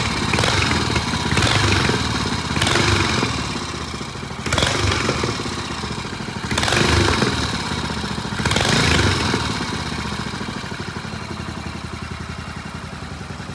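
Single-cylinder Triumph motorcycle engine running, blipped about six times over the first nine seconds, then settling to a steady idle. Freshly restored and on its first start, it revs cleanly and idles smoothly.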